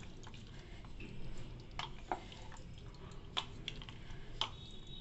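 Wooden spatula stirring a thick mutton and vegetable gravy in an aluminium pressure cooker pot, giving a few light, irregular clicks and taps against the pot.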